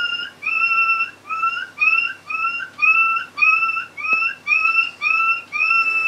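A phone ringtone made to sound like a dog. It plays a rapid, even run of short, high, whistle-like notes, about two a second, each bending slightly upward.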